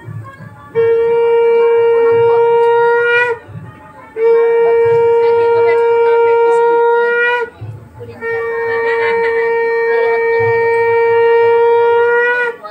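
Conch shell (shankha) blown in three long, steady blasts, each ending with a slight rise in pitch. This is the ritual conch blowing that marks a Bengali Hindu blessing ceremony.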